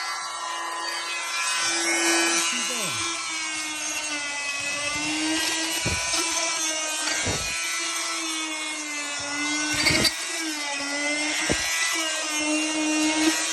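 Oscillating multi-tool fitted with a flexible scraper blade running steadily, a high buzzing hum whose pitch wavers slightly as the blade scrapes dried tile adhesive off a wall, with a hiss of scraping and a few short knocks along the way.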